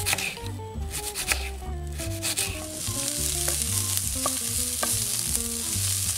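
Diced onion sizzling as it fries in olive oil in a nonstick pan, scraped and stirred with a wooden spatula; the sizzle comes in about two and a half seconds in, after a few knife taps on a wooden chopping board. Background music with a simple melody plays throughout.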